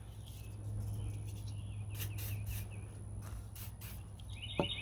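Small birds chirping, ending in a quick run of repeated chirps near the end, over a steady low hum, with a few light clicks.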